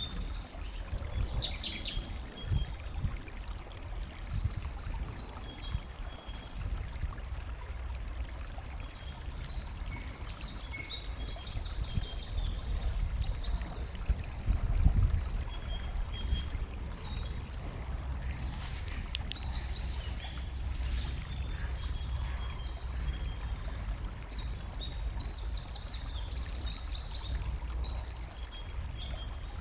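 Many small songbirds chirping and twittering over a steady background of running water. A low rumble underneath swells briefly near the start and again about halfway through.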